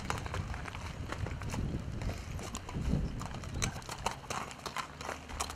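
A horse's hooves walking on a gravel yard: irregular clip-clop steps crunching on the stones.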